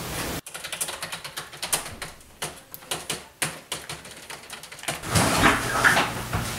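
Typing on a computer keyboard: a quick, irregular run of key clicks. After about five seconds the clicks give way to a louder steady noise.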